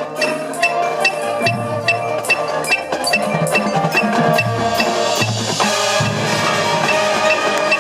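Marching band playing, with percussion striking a steady, quick beat of about three strokes a second under sustained pitched notes.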